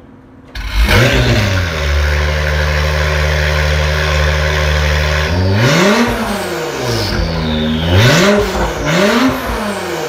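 2017 Acura NSX's twin-turbo 3.5-litre V6, fitted with an Armytrix titanium exhaust, starting up about half a second in with a loud flare that settles to a steady idle. Near the end it is revved three times, the pitch rising and falling with each blip.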